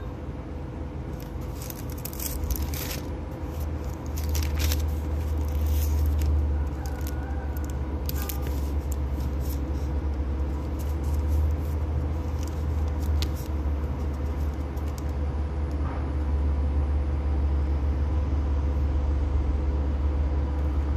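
A steady low rumble that grows louder about four seconds in, with a faint steady hum over it and scattered light clicks and rattles, most of them in the first half.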